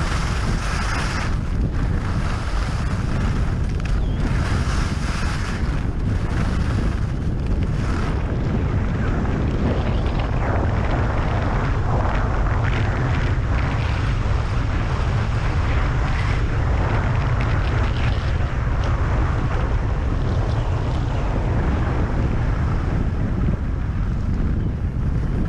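Wind buffeting a GoPro Hero 5 Session's microphone as a skier runs down a groomed piste at speed, a steady rumble, with the hiss of skis on the snow. The hiss comes and goes over the first eight seconds or so.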